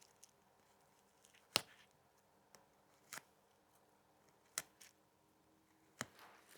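Stitching thread being unpicked from backpack shoulder strap webbing: four sharp snips about a second and a half apart, the loudest about one and a half seconds in, with a few fainter ticks between.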